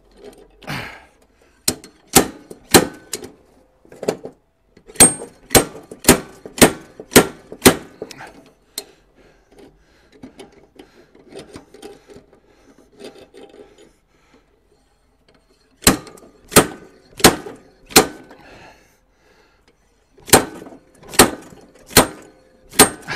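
A slide hammer's weight is slammed against its stop again and again, making sharp, ringing metal clanks in runs of three to six blows about half a second apart, with pauses and fainter clinks between the runs. It is pulling a stuck blade carrier off a lawnmower's crankshaft.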